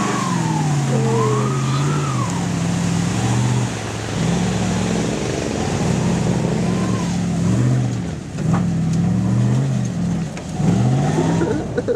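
Ford F-250 pickup's engine revving up and down again and again as the truck drives through mud.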